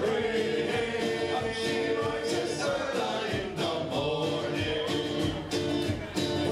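Live band playing: strummed acoustic guitars and other strings with a drum keeping the beat, and several voices singing together in long held notes.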